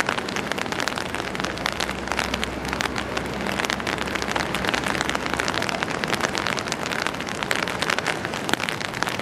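Steady rain pattering on an umbrella close over the microphone, a dense rush of tiny drop hits.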